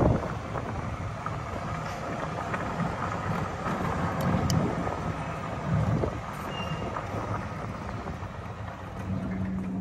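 Golf cart driving along a paved path: a steady rolling noise from the tyres and motor. A steady low hum comes in near the end.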